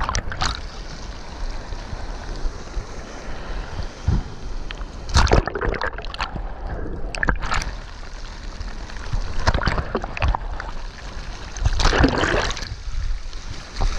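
Seawater sloshing and splashing around a camera held at the surface by a swimming diver, with several irregular louder splashes, the strongest about a third of the way in and near the end.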